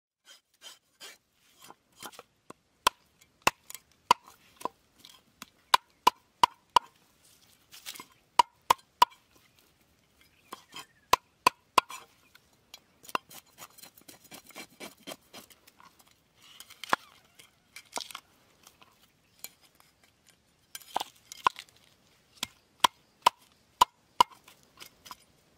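A large knife striking a wooden chopping board over and over while a whole fish is scaled and cut: sharp knocks in quick groups of two to four, each ringing briefly. Between them come a few short stretches of softer scraping.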